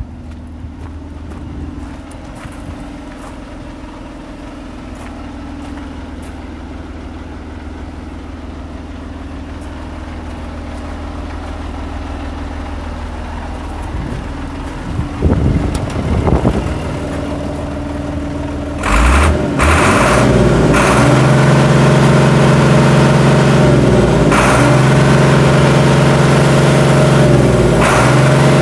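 Volvo FL613 lorry's six-cylinder diesel engine idling steadily, slowly growing louder. There are a couple of bumps a little past halfway, then the engine sound steps up sharply about two-thirds of the way through and stays loud and deep.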